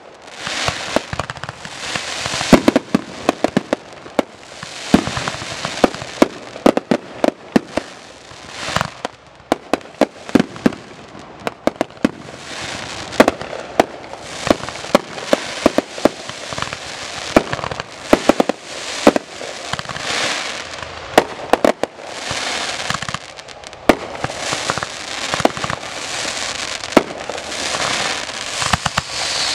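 Fireworks finale: rapid volleys of sharp bangs, often several a second, over continuous crackling and hissing as shells launch and burst close by.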